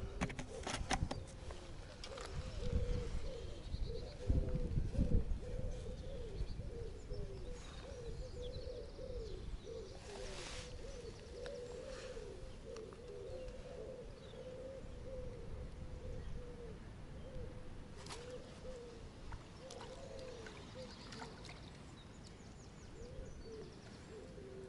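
Pigeons cooing over and over in a steady run of short, low calls. There are a few clicks and a low rumble in the first few seconds.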